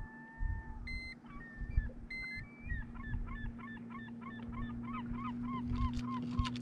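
Handheld digital fish scale beeping twice, short high electronic beeps a little over a second apart, as it weighs a smallmouth bass. Behind them a bird calls in a rapid run of short repeated notes, about three a second, growing louder toward the end.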